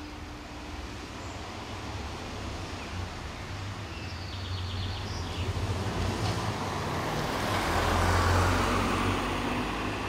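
A car driving past on the street, its tyre and engine noise swelling slowly to its loudest about eight seconds in and then fading as it moves away.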